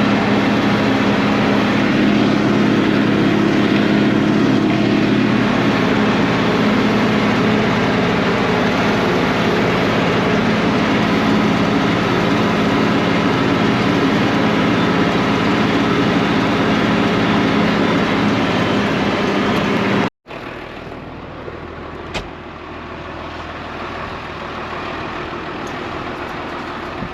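Tractor diesel engine running loud and steady for about twenty seconds, then a sudden cut to a quieter engine idling, with one sharp click a couple of seconds after the cut.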